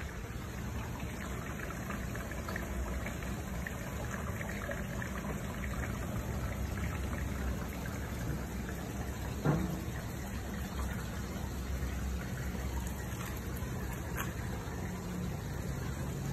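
Water running steadily as a pump fills a plastic drum, with one sharp knock about halfway through.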